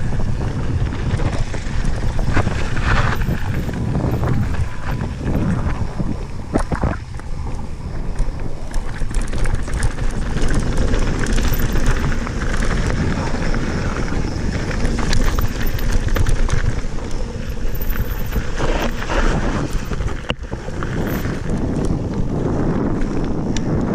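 Wind buffeting an action camera's microphone as a Santa Cruz Bronson mountain bike rolls down a gravel and small-stone trail. The tyres crunch and the bike rattles, with occasional sharp knocks.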